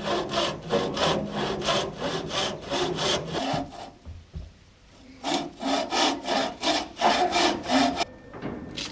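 Hand bow saw cutting through an old wooden plank, with even back-and-forth strokes about three a second. The sawing stops for a second or two in the middle, starts again, and ends near the close.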